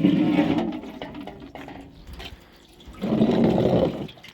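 Water splashing and pouring while clothes are washed by hand: two bursts, one at the start and another about three seconds in.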